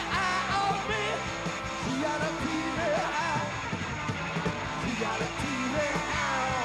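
A punk rock band playing live, with electric guitars and drums, and a man singing over them in wavering, bending lines.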